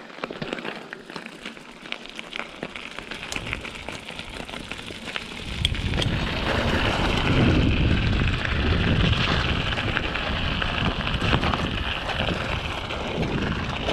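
Mountain bike tyres rolling over a gravel path, a constant crunching crackle with many small stone clicks. About five and a half seconds in, a loud low rumble on the microphone joins in and stays.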